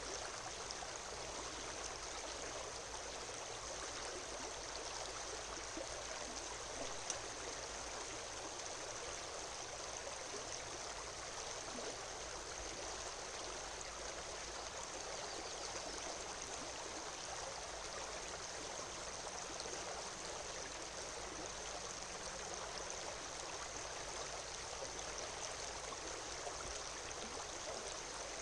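A river flowing steadily, an even rush of water, with a single short tap about seven seconds in.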